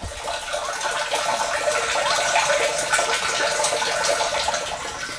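Gravity-fed spring water running from a pipe into a blue plastic rain barrel, filling it with a steady rushing splash.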